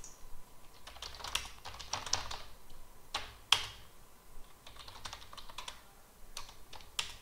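Typing on a computer keyboard: irregular keystrokes in uneven runs, with one sharper, louder key strike about three and a half seconds in.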